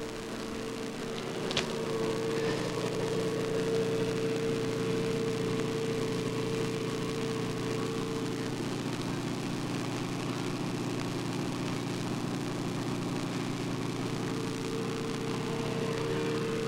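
Steady mechanical hum of a running motor over background hiss, with a single sharp click about a second and a half in.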